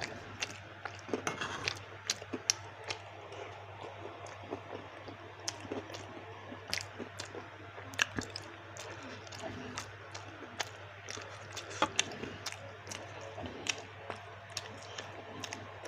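Close-up eating sounds of spicy baso aci: wet chewing and squishing of the chewy tapioca balls, with many scattered sharp clicks and smacks over a faint steady hum.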